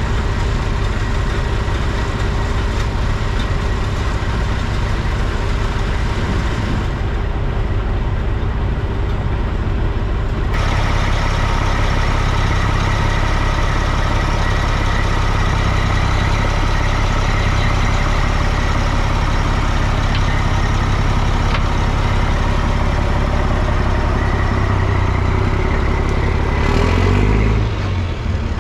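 Diesel engine running steadily. Its note turns brighter and higher about ten seconds in, and there is a brief louder swell near the end.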